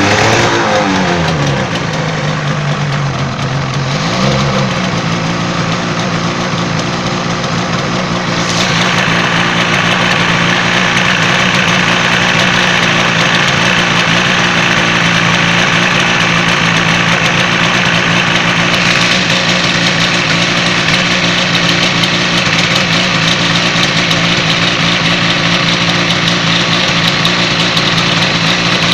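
Yamaha TZR250's parallel-twin two-stroke engine settling back to idle from a blip of revs, blipped briefly once more about four seconds in, then idling steadily. A brighter hiss joins the idle about eight seconds in.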